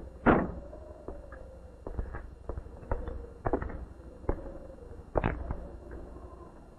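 A car door slams shut just after the start, followed by a scatter of irregular footsteps and knocks. A faint steady tone runs underneath.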